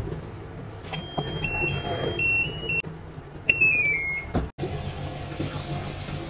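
Geepas top-loading washing machine's control panel beeping as its buttons are pressed: several short high beeps, then a quick falling run of tones as the Start button sets the wash going. After a sudden cut, a low steady hum.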